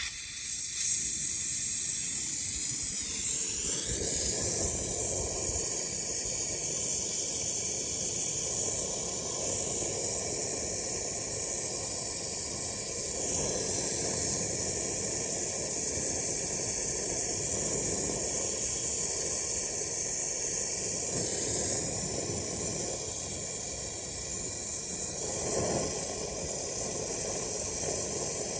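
Gas brazing torch burning with a steady loud hiss, coming on about a second in.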